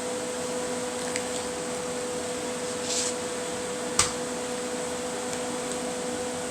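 Steady kitchen-appliance hum with a clear held tone, broken by a short soft rustle about three seconds in and a single sharp click a second later.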